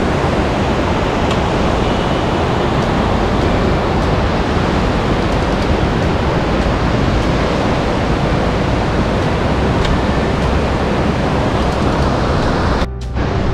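Loud, steady rush of fast-flowing Himalayan river water, the Dhauliganga and Alaknanda tumbling over boulders where they meet. It cuts off abruptly near the end.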